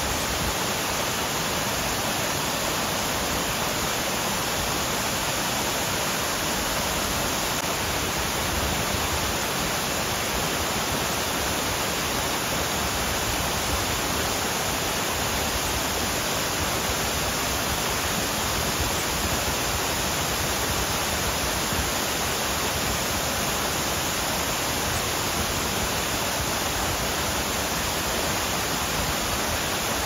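Waterfall cascade, water sheeting and foaming down a sloping rock slab, a steady, unbroken rush of water.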